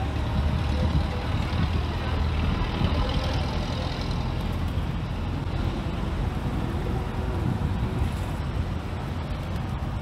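Steady low rumble of urban outdoor background noise, like road traffic, with no distinct separate events.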